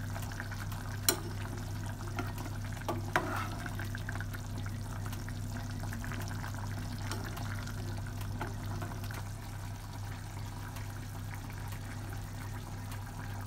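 A pot of vegetable stew simmering while a metal spoon stirs it, clinking against the pot about a second in and again about three seconds in, over a steady low hum.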